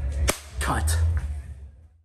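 A single sharp snap, followed by a man saying "Cut", over a low hum that fades out near the end.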